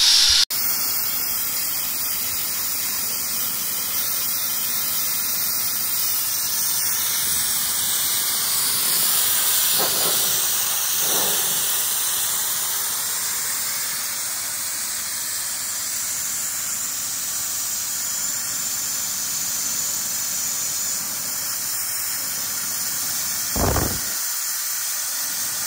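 Portable pressure-pot sandblaster's nozzle blasting abrasive onto a rusty steel truck bracket, a steady hiss that barely changes. A brief knock is heard near the end.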